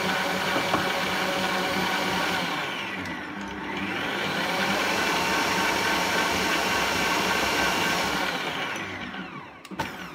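Electric stand mixer running at speed, beating dry flour and yeast in its steel bowl to aerate it. Its pitch dips and rises again about three seconds in, and the motor winds down near the end as it is switched off, with a couple of clicks from the dial.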